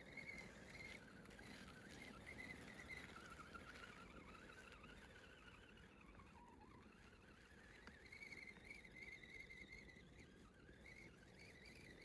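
Faint whine of an RC crawler's electric motor and gearbox as it drives through snow. The pitch rises and falls with the throttle and dips briefly about halfway through.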